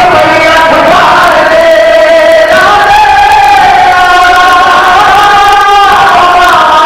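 Male voices chanting a mourning lament (masaib) loudly together: the reciter's sung lament with the men around him joining in. Long held notes, the pitch stepping up about three seconds in and falling back near the end.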